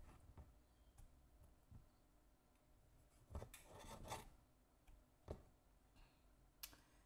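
Kitchen knife slicing cherry tomatoes on a wooden cutting board: a few faint, scattered cuts and knocks of the blade on the board, the clearest about halfway through.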